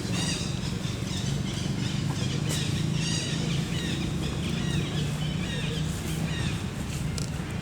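Many short, high-pitched animal chirps and squeaks following one another, over a steady low hum.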